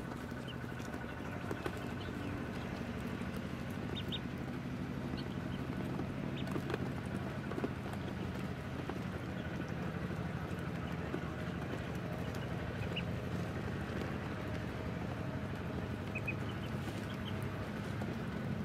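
Ducklings peeping now and then in short high notes while pecking at grain, with small clicks of bills on the feed, over a steady low hum.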